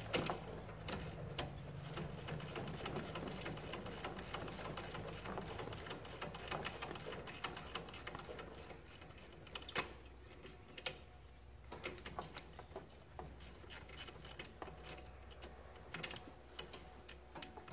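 Hand tools working on a snowblower carburetor as it is unbolted and removed: rapid metal clicking for the first half, then scattered sharper clicks and clinks.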